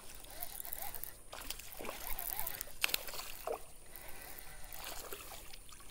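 Faint sloshing and splashing of shallow creek water, with scattered small clicks.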